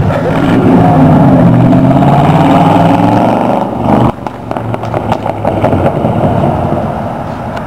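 1947 Ford hot rod's engine and glass-pack exhaust pulling away under hard acceleration, the pitch climbing, then dropping off suddenly about four seconds in and running on more quietly. The worn gaskets either side of the glass packs are still leaking, which the owners say they can still hear.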